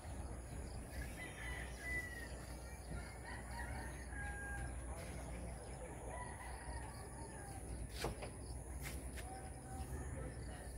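A rooster crowing, faint, over a steady low rumble. Two sharp clicks near the end.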